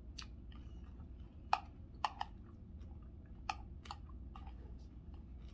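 A person chewing a mouthful of chicken salad, with a scatter of sharp, wet mouth clicks, the loudest about a second and a half in.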